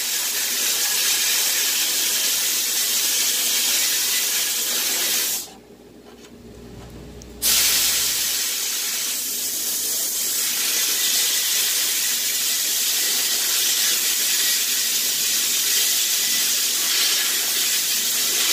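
Abrasive blast cabinet nozzle blasting aluminium oxide grit at about 80 PSI against a PVD-coated gun part, stripping the hard coating: a steady loud hiss that cuts off for about two seconds about five seconds in, then starts again.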